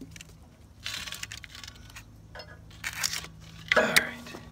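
Old rubber wheel belt being pulled and stripped off a sawmill's band wheel, with rough tearing and scraping in three bursts. The last burst, near the end, is the loudest.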